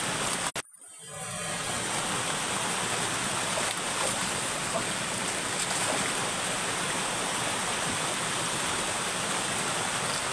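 Steady rush of flowing stream water. The sound cuts out briefly about half a second in and swells back within a second.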